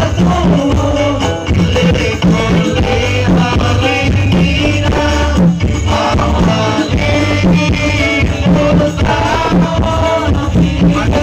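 A man singing into a microphone over live music played through a loud PA system, with a steady beat of about two pulses a second.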